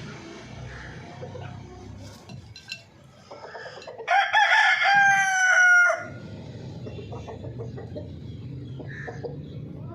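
Rooster crowing once, about four seconds in, lasting some two seconds: a few short notes and then a long drawn-out final note that falls slightly in pitch.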